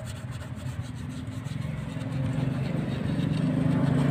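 A motor vehicle engine running steadily with a low hum, growing louder about halfway through.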